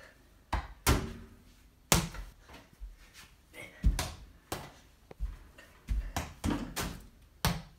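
A mini basketball being shot at a toy hoop with a plastic backboard, knocking against the backboard and bouncing on a hard tile floor. It makes a string of sharp knocks and thuds at uneven spacing, about one a second.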